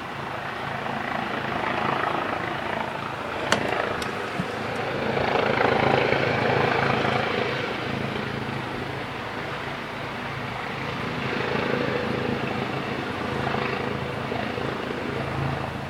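Police helicopter close by, its rotor and engine noise steady, swelling and easing slowly over several seconds. A single sharp click about three and a half seconds in.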